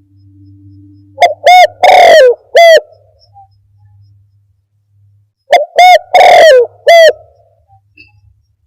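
Spotted dove cooing, used as a trapping lure call: two phrases a few seconds apart, each a short coo, a longer drawn-out middle coo and a short closing coo. The recording is overdriven and clips on every phrase.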